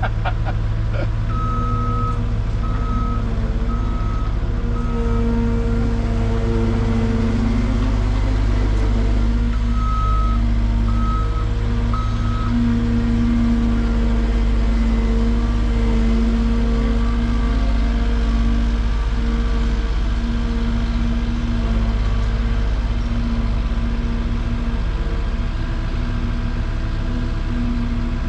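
Diesel engine of compact earthmoving equipment running steadily under work. A backup alarm beeps in two short runs, four beeps at the start and three more about ten seconds in, as a machine travels in reverse.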